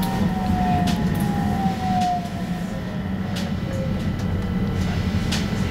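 Stockholm A35 tram's electric traction drive whining with a steadily falling pitch as the tram slows, over a steady low running rumble, with a few sharp clicks from the wheels and car body.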